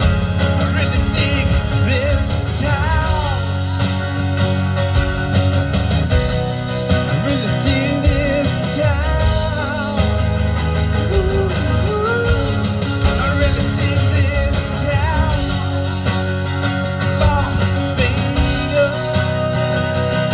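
Live rock band playing, with a gliding lead line over steady bass and drums and no sung words.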